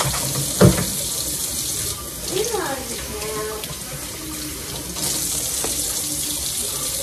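Kitchen faucet running into the sink in a steady stream, easing off for a few seconds in the middle before coming back full. A sharp knock sounds just under a second in.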